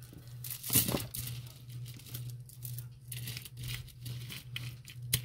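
Strands of turquoise-coloured bead necklaces clicking and rattling as they are handled and laid down on a pile of jewelry, with a sharper clack about a second in and another near the end, over a steady low hum.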